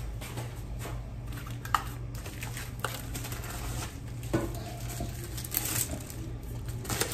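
Packing materials and small items being handled: scattered light knocks, clicks and crinkling, over a steady low hum.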